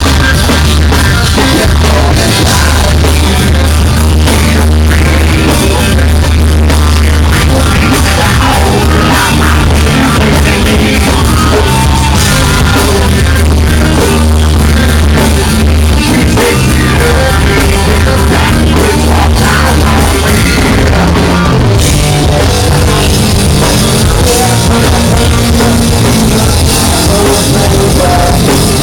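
Live rock band playing loud with a heavy bass rumble. The recording is overloaded and distorted from being made right by the stage.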